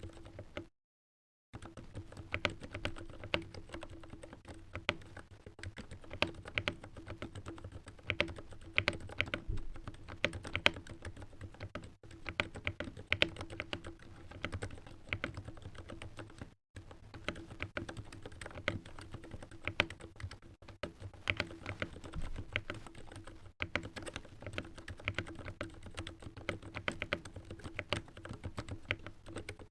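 Continuous typing on an LTC Nimbleback hot-swap mechanical keyboard fitted with lubed Gateron Silent Black switches, an irregular stream of soft keystrokes. Under it runs a steady low electrical buzz from the microphone.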